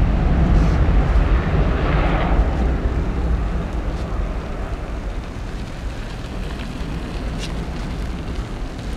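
Jet airliner engines rumbling low and deep, fading over the first few seconds as the aircraft moves away, then a steady quieter rumble.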